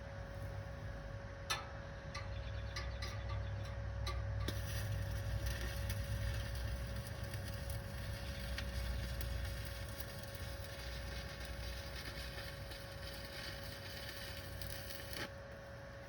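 Electric welder arc welding steel exhaust stack pipe. A few short sputtering strikes are followed, about four seconds in, by a steady crackling arc that cuts off suddenly near the end.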